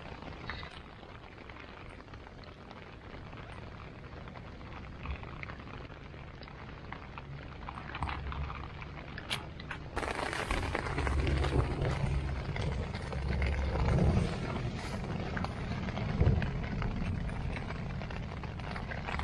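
Quiet outdoor background with a few small clicks. About ten seconds in it gives way to louder rustling and bumping of a rain jacket and tent fabric as someone crawls into a small backpacking tent, with dull low thumps and a few sharper knocks.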